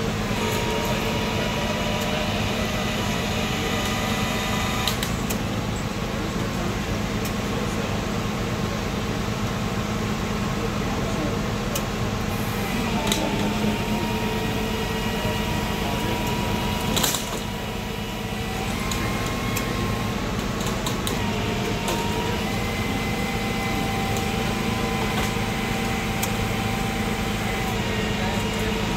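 Rollback tow truck running steadily while its winch drags an overturned car up the bed: a constant low hum with thin whining tones that shift in pitch now and then. A single sharp clack about halfway through.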